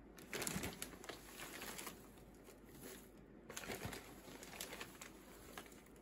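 Dry timothy hay and its plastic bag rustling and crackling in several bouts as hay is pulled out by hand and dropped into a cage tray.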